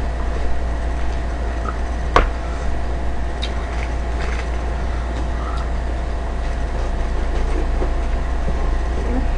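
Steady low hum and hiss of background noise, with one sharp click about two seconds in.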